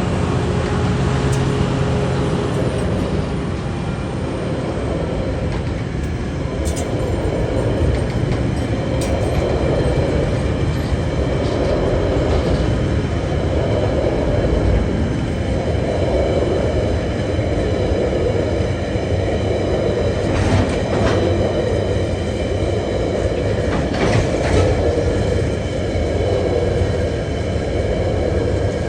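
Freight train wagons rolling slowly past on a 30 km/h heat restriction: a steady rumble of wheels on rail that swells every couple of seconds, with a few short sharp sounds scattered through it.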